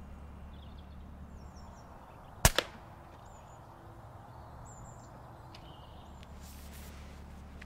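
A single shot from an Air Arms S510 Ultimate Sporter, a pre-charged pneumatic air rifle with a moderator, about two and a half seconds in: a short sharp crack, then a second sharp sound a split second later. Faint bird chirps sound now and then against a quiet background.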